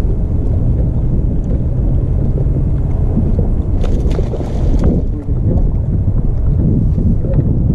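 Strong wind buffeting the microphone of a camera mounted on a bass boat, a loud, dense low rumble that hardly lets up.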